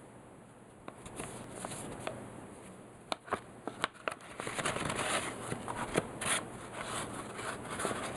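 Paper rustling and crinkling as cotton-gloved hands handle a paper envelope, open it and slide a card out. There are a few sharp paper clicks around the middle, then denser rustling.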